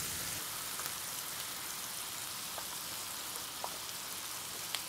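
Ribeye steaks frying in butter in a hot pan: a steady sizzling hiss with a few faint pops.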